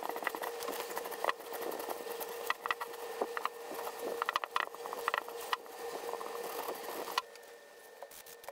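A cloth rag rubbing and wiping a freshly stained wood carving, with rustling newspaper and small crinkling clicks, stopping about seven seconds in. A faint steady hum runs underneath.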